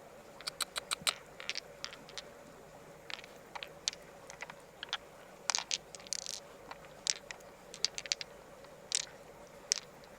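Irregular sharp clicks and scrapes of hard objects knocking and rubbing together, several in quick clusters, over a faint steady hum.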